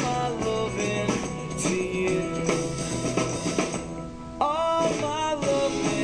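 A song with singing played from a Sony portable CD player through a small external Altec speaker, started by an accessibility switch in timer mode. The music dips briefly about four seconds in, then carries on.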